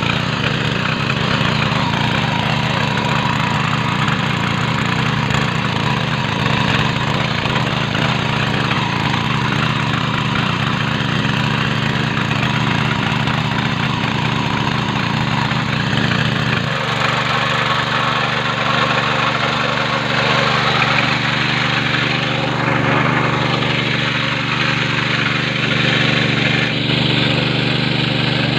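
7 hp mini power tiller's air-cooled petrol engine running steadily under load as its rotary tines churn through hard, stony soil. The sound of the engine changes about halfway through.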